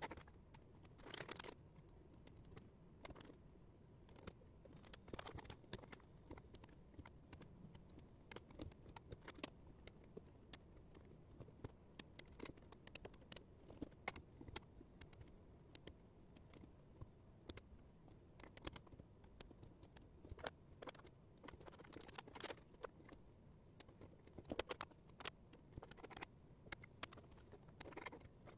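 Faint, irregular light clicks of thin wooden jigsaw puzzle pieces being picked up and set down, with a few short brushing scrapes as hands sweep pieces across the table.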